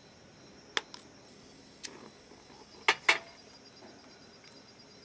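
Night insects chirring steadily and faintly in the background, broken by a few sharp clicks and knocks, the loudest a pair about three seconds in.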